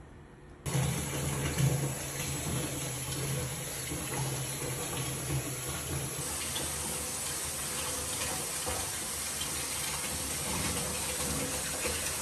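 Water running steadily from a tap into a bathtub as the bath fills, starting suddenly about a second in. There is a low hum under it for the first half.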